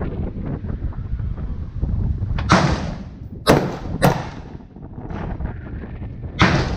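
Four rifle shots at uneven intervals: one, then two about half a second apart a second later, then another near the end, over a steady low rumble.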